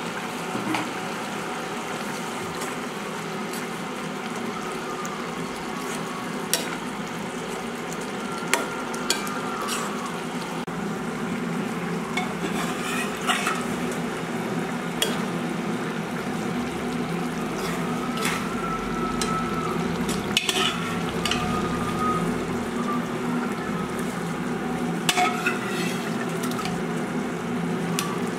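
Chicken-feet gravy cooking in a metal kadai on a gas stove with a steady sizzle, while a metal ladle stirs and scoops, clinking and scraping against the pan and pressure cooker about a dozen times.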